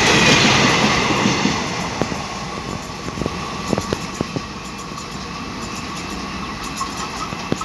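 Tail of a freight train, its brake van passing and drawing away: the rolling rumble of the wheels fades over the first two seconds or so, leaving a quieter rolling sound with scattered sharp clicks.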